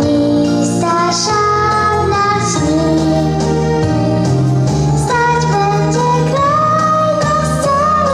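Backing music for a patriotic song: a melody of long held notes over a bass line that steps from note to note.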